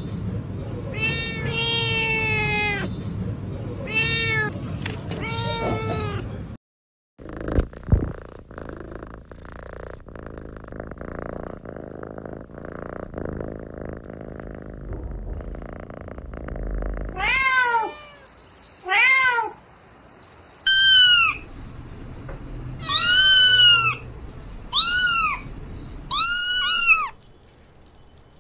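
Kittens meowing. First come several drawn-out meows, then a stretch with no calls, and from about two-thirds of the way in a run of shorter, higher-pitched mews, each rising and falling in pitch.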